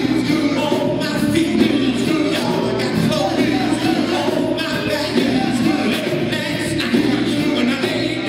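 Live music: a male vocal group singing into microphones over electric guitar and bass guitar.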